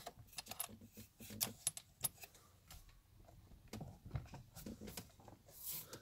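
Faint, scattered metallic clicks and clinks of small metal parts, the steering wheel's centre nut and washer, being handled by hand.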